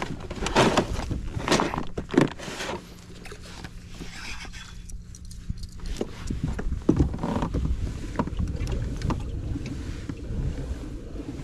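Fishing kayak on the water: irregular knocks and splashes against the hull and gear being handled, over a low rumble. A faint steady hum stops about six seconds in.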